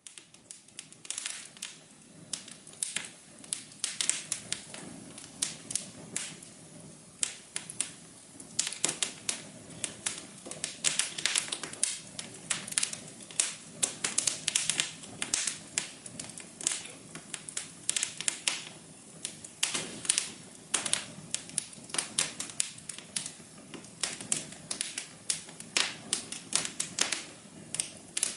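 Wood fire crackling: a steady low hiss and rumble under many sharp, irregular pops and snaps, several a second.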